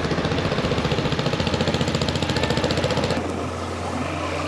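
Boat engine running under way with a rapid, even knocking pulse. About three seconds in, the sound changes to a smoother, steadier hum.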